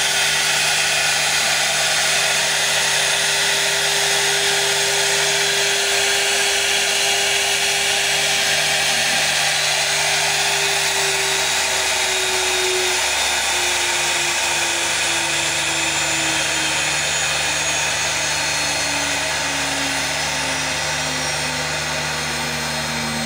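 CNC wood router running, its spindle giving a steady whine over a broad machining hiss. About ten seconds in, the whine starts to fall slowly and steadily in pitch while the hiss carries on.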